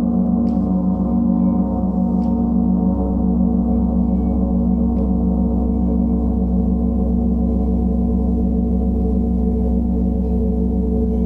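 Large Paiste planetary gong sounding a steady, dense wash of many tones with a fast pulsing shimmer, kept going by a felt mallet played softly on its face. A few faint light ticks are heard.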